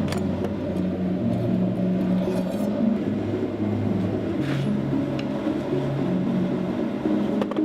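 Background music carried by a low melody line that steps from note to note, with a faint tap about four and a half seconds in.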